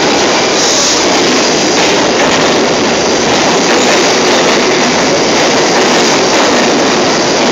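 New York City subway D train pulling into an underground station, its cars running past the platform at speed with a loud, steady rush and rattle of wheels on the rails.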